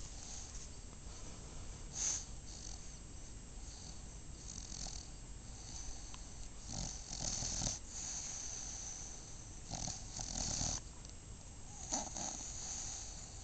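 English bulldog snoring as it breathes, several noisy snorts and snores a few seconds apart, the longest about halfway and three quarters through. This snoring is typical of the breed's short, flat muzzle.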